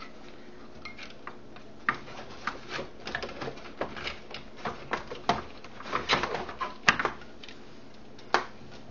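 Irregular clicks and light knocks of the Emax keyboard section being worked into its case, coming thickly through the middle of the stretch and once more near the end.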